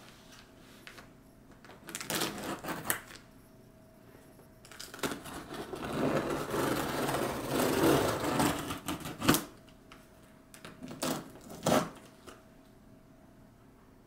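Packaging being handled and rustled as a box is unpacked: short bursts of rustling and clatter, with a longer stretch of continuous rustling from about five to nine seconds in.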